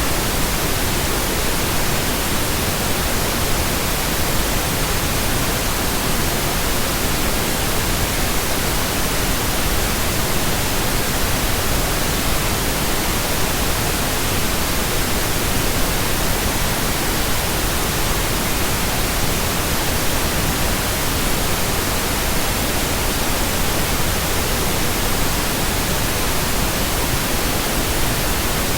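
Steady synthetic pink noise: an even, unchanging hiss spread across all pitches, with no tones or events in it.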